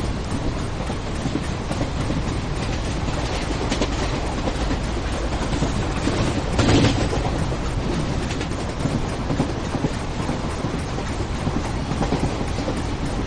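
Railway train running on the track: a steady, loud rumble of wheels and rails, with a brief louder surge about halfway through.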